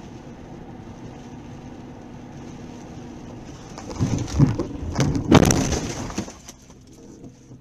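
Car collision heard from inside a moving car: steady road noise, then about four seconds in several loud impacts over roughly two seconds, the hardest about halfway through, before it dies down.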